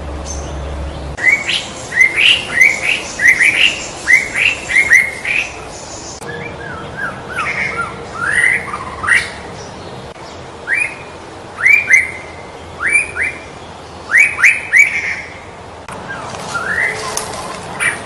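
White-rumped shama (murai batu Medan) singing: runs of short, rising whistled notes in quick succession, starting about a second in, with brief pauses between phrases.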